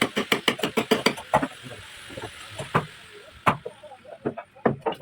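Hammer striking hardwood: a fast run of taps, about eight a second, for the first second and a half, then single knocks spaced a second or so apart.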